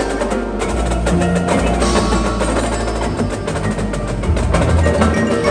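Indoor percussion ensemble playing: marching drums in dense, rapid strokes together with front-ensemble mallet keyboards ringing out pitched notes, over sustained low bass notes.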